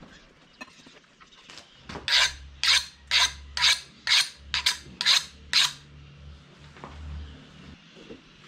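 Eight quick rasping strokes, about two a second, then they stop: hand abrasion worked back and forth on the knife.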